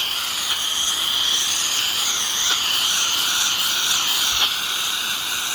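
A steady high-pitched chorus of calling animals, with a faster pulsing trill above it.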